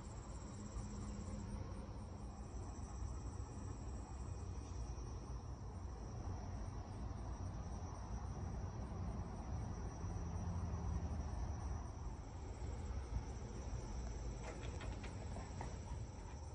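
Crickets chirring steadily in a summer evening chorus, over a low rumble, with a few faint clicks near the end.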